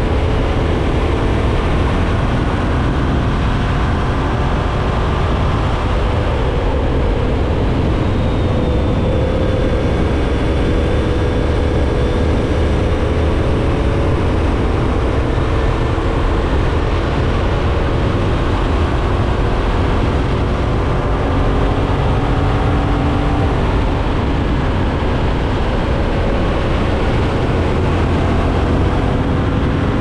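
Yamaha MT-07's parallel-twin engine pulling steadily in sixth gear as the bike gains speed from about 70 to 80 mph, under a heavy rush of wind noise.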